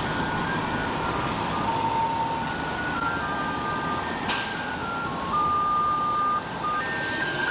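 Road-cleaning water truck playing a simple electronic jingle from its loudspeaker, one plain note at a time like an ice cream van's tune, over steady street traffic noise.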